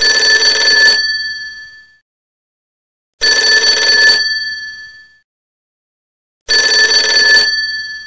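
Time's-up sound effect: a mechanical bell rattling in three bursts of about a second each, roughly three seconds apart. Each burst rings on briefly after the rattle stops.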